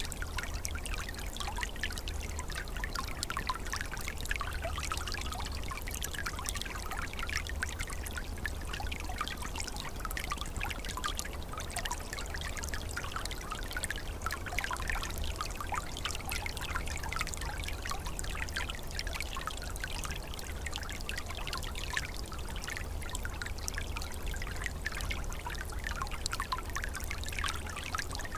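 Small forest stream trickling and gurgling steadily over its bed, many small splashes and bubbles, with a low steady rumble underneath.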